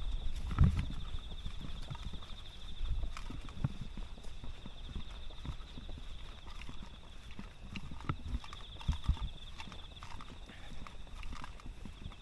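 Irregular dull thuds and knocks, like footfalls, under a steady high trill that pulses rapidly.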